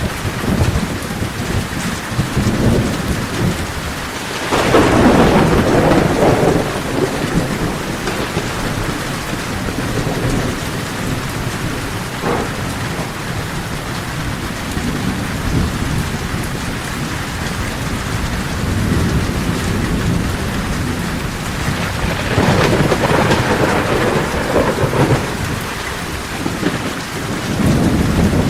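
Torrential rain drumming steadily on a tin roof, with long rolls of thunder swelling about four seconds in, again a little past twenty seconds, and once more near the end.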